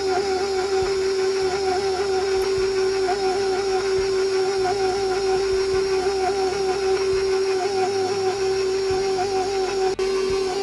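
KitchenAid stand mixer running steadily, its motor whining at one constant pitch as the flat beater turns through a flour mixture. The sound drops out for an instant near the end.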